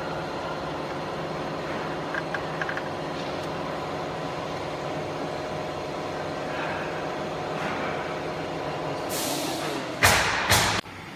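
Steady electrical machine hum. About nine seconds in a hiss comes up, followed near the end by two short, loud hissing bursts that stop abruptly.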